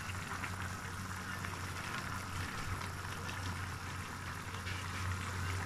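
Pansit broth with vegetables boiling in a wok: a steady bubbling hiss with small fine pops, over a steady low hum.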